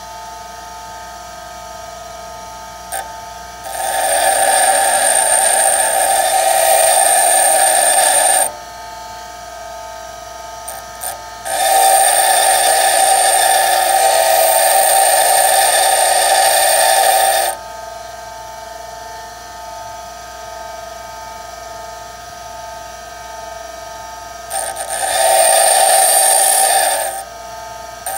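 Bench grinder running steadily while a twist drill bit's tip is ground against the wheel in three passes: a loud, harsh grinding starts about four seconds in and lasts about five seconds, comes again for about six seconds, and a shorter pass follows near the end. Each pass sharpens the drill's cutting edge and relief face.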